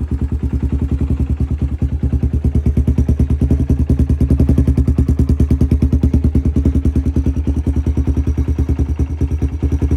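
Honda 300EX ATV's single-cylinder four-stroke engine idling with a fast, even putter, running just after its first start in months.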